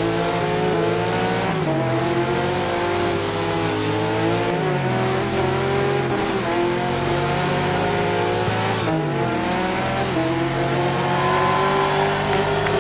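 Race car engine sound effect accelerating through the gears. The pitch climbs and drops sharply at each upshift, three times.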